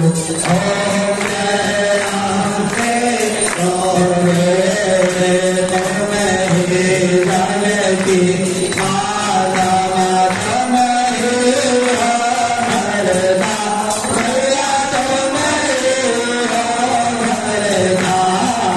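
Hindu aarti hymn sung as a continuous devotional chant, the melody carried without a break.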